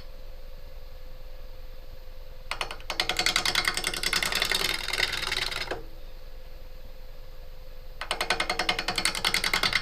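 Wood lathe running with a steady hum while a bowl gouge cuts the spinning walnut wedge, a rapid rhythmic clatter as the tool meets the uneven wood. The cutting starts about two and a half seconds in, stops after about three seconds, and starts again near the end.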